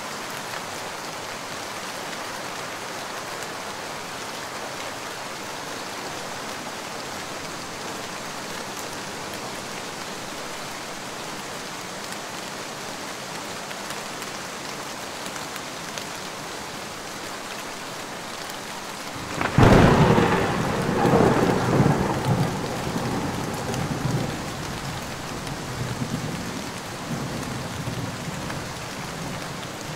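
Added rain-and-thunder sound track: steady light rain. About two-thirds of the way in comes a sudden clap of thunder that rolls on in uneven surges and fades away over several seconds.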